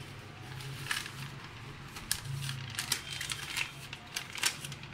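Paper and plastic packaging crinkling as it is handled: a long paper invoice being unfolded and the plastic mailer moved, giving a series of sharp crackles over a steady low hum.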